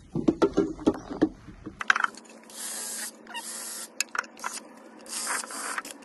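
Cordless drill boring screw holes through the back of an outdoor socket box, in several short bursts starting about two seconds in.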